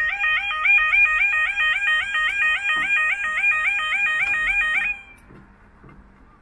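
Level crossing audible warning alarm sounding its warbling two-tone 'yodel', about two and a half cycles a second, while the barriers rise; it cuts off suddenly about five seconds in.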